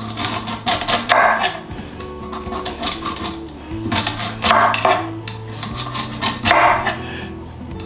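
Background music with a steady bass line, broken by a few short, loud accents.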